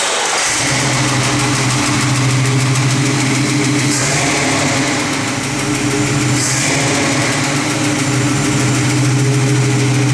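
The custom 1965 International Scout's carbureted engine idling steadily, dipping slightly in level about halfway through.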